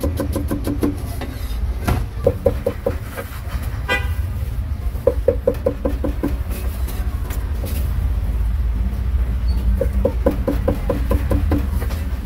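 Street traffic: a steady low engine rumble, a short horn toot about four seconds in, and several bursts of rapid, pulsing horn-like beeps.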